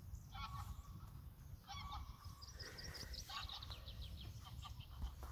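Geese honking in flight: a run of repeated calls, thickest in the middle, with a low wind rumble on the microphone.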